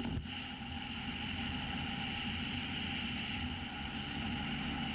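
Motorcycle engine running steadily under road and wind noise, as heard from a camera mounted on a moving motorcycle.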